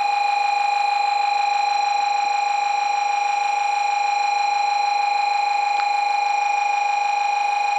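Shinkansen platform's approaching-train warning alarm sounding as the train pulls in: a loud, steady electronic tone with a fast flutter.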